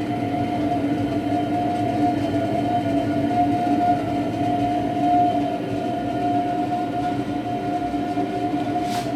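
40-kilowatt wall-mounted gas boiler running at full power in hot-water mode, its burner and heat exchanger giving a steady rumble with a constant high squeal over it. The squeal appears only at maximum hot-water output, not in heating mode.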